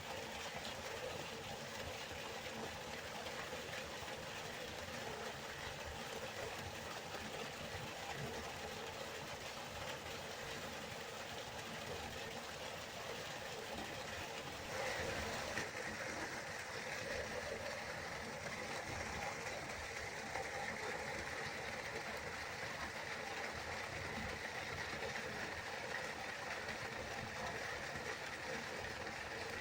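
River water flowing with a steady rushing sound. About halfway through, the rush shifts abruptly to a brighter, hissier tone.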